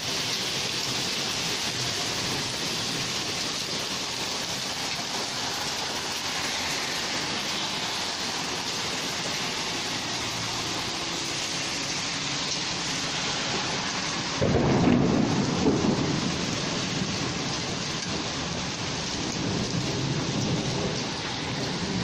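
Heavy rain hissing steadily on pavement. About fourteen seconds in, a sudden rumble of thunder breaks in and rolls off over a few seconds, with a fainter rumble near the end.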